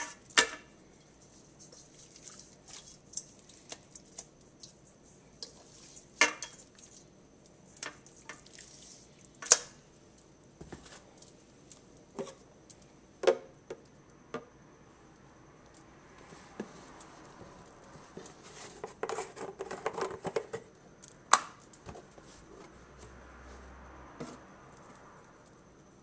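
Hands rubbing seasoning into raw round steaks in a metal colander: scattered sharp clicks and knocks of fingers and bangles against the metal, with a busier stretch of rubbing and clattering about three-quarters of the way through.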